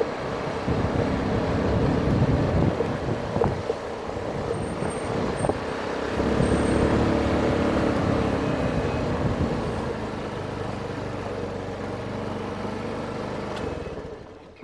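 Motor scooter engine running while riding, with wind rushing over the microphone. The engine gets louder around six seconds in, then dies away near the end as the scooter comes to a stop.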